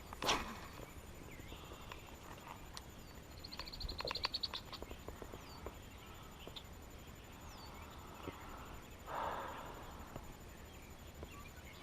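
Quiet outdoor background with a few short, high, falling bird chirps. A sharp knock comes just after the start, a run of quick clicks about four seconds in, and a brief rustle about nine seconds in.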